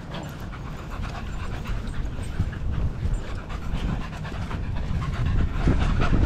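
Small dogs panting hard close to the microphone after running, over a low rumble of wind on the microphone that grows louder near the end.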